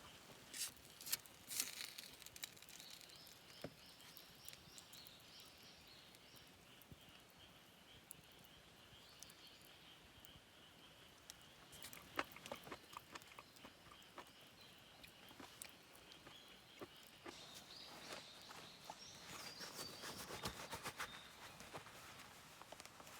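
Faint forest ambience: small birds singing high up, with scattered light clicks and taps.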